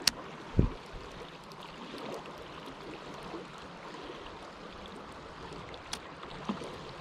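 Steady rush of a fast river current. A sharp click comes right at the start, a short low thump just after it, and another click near the end.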